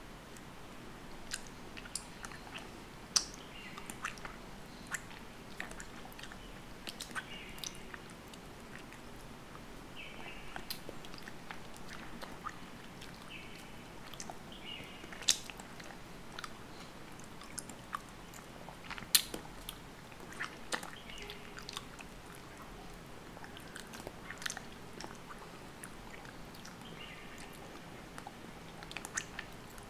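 Fingers tearing apart the juicy pulp and membrane of an orange segment, giving irregular wet, sticky clicks and small tearing crackles, with a few sharper snaps.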